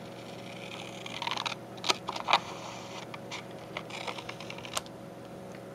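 Scissors snipping through thick paper paint sample cards. The card rustles about a second in, two crisp loud snips follow near two seconds, then a run of lighter clicks and snips.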